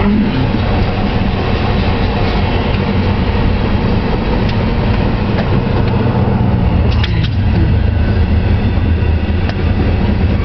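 Freight train of enclosed autorack cars rolling past close by: a steady rumble and rattle of steel wheels on the rails, with a few sharp clicks.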